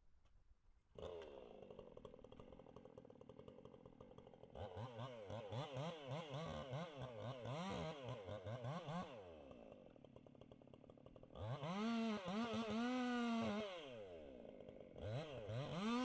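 Chainsaw engine running, coming in suddenly about a second in, its speed swinging rapidly up and down, then revved hard to a high, steady pitch twice, about eleven seconds in and again near the end.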